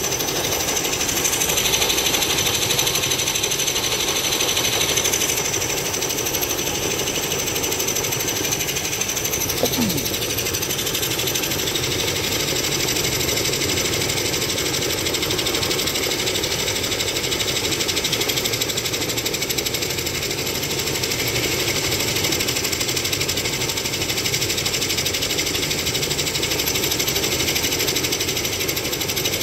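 Helicopter running close by, its rotor chopping steadily over a steady high-pitched turbine whine.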